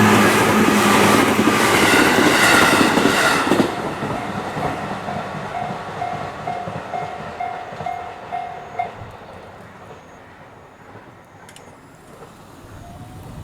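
JR Ryomo Line electric train passing over a level crossing: loud wheel-and-rail noise for the first few seconds that fades as the train moves away. The crossing's warning bell keeps ringing at about two strikes a second and stops about nine seconds in. A few faint clicks follow near the end.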